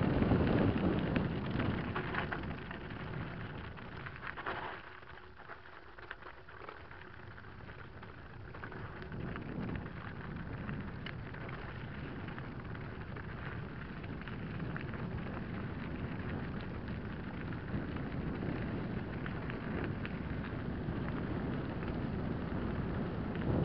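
Mountain bike rolling fast down a loose gravel and stone track: tyres crunching over stones, with rattling and wind rush on the bike-mounted camera's microphone. The noise drops off for a few seconds about five seconds in, then builds again.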